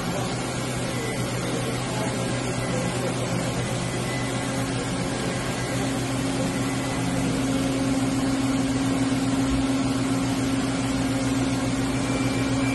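Hartford PRW-5340 bridge-type CNC machining center running with a steady mechanical hum; about halfway through, one low tone in the hum grows stronger and the sound gets a little louder.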